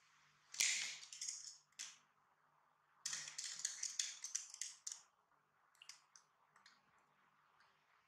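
Crinkling plastic packaging handled in two bursts, the first about a second and a half long, the second about two seconds, followed by a few light ticks and clicks.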